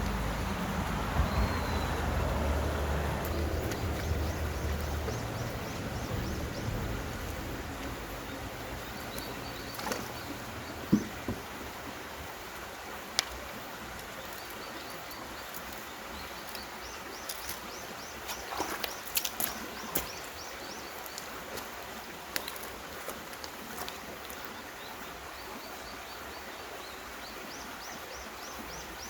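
Quiet mountain-stream ambience: a low rushing noise fades over the first few seconds. Repeated runs of short, high chirps come several times, with a few sharp clicks or knocks in between.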